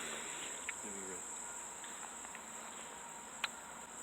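Crickets trilling steadily in a high, even drone, with a faint click about three and a half seconds in.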